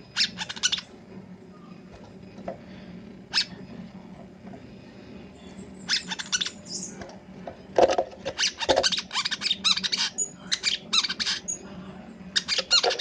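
Brown-throated sunbird (kolibri kelapa) singing in bursts of rapid, high chattering notes, the longest run starting about eight seconds in. A low steady hum runs underneath.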